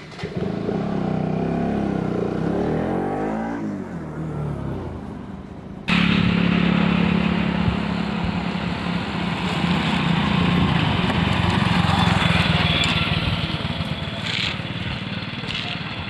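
Motorcycle engine running and revving as it pulls away, its pitch sweeping up and down; about six seconds in the sound cuts abruptly to a louder, steady engine drone.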